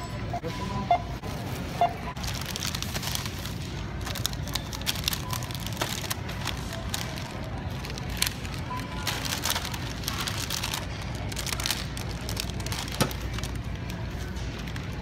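Self-checkout scanner beeping a few times in the first two seconds and once more about halfway, as items are scanned. Plastic grocery bags rustle and crinkle as the items are bagged.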